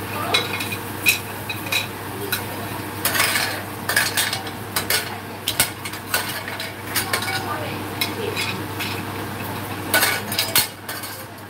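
Metal utensil clinking and scraping against a plate and a stainless-steel frying pan as abalone pieces are put into the pan, with the sizzle of frying underneath. The clinks come irregularly, with a cluster of sharp ones near the end.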